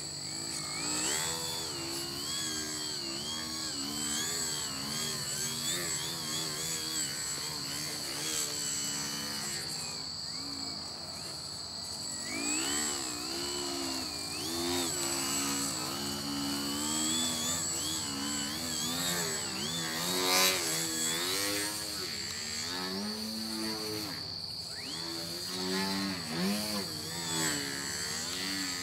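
Electric motor and propeller of a small foam 3D RC plane (Twisted Hobbies Crack Yak) whining. Its pitch rises and falls constantly with the throttle as the plane hovers and manoeuvres. A steady high chirring of night insects runs behind it.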